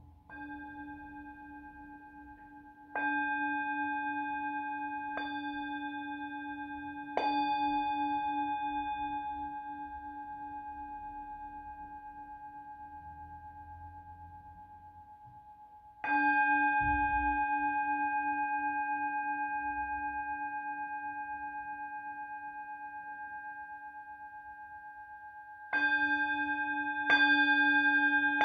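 Tibetan singing bowl struck about seven times: twice softly, then harder strikes around three, seven and sixteen seconds in, and two close together near the end. Each strike leaves a long ringing tone with a slow wobbling pulse that fades before the next.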